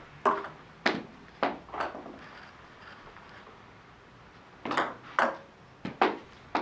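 Table tennis backhand sidespin serves: crisp clicks of the paddle striking the celluloid ball and the ball bouncing on the table, in two quick runs of four or five clicks each with a pause of about three seconds between.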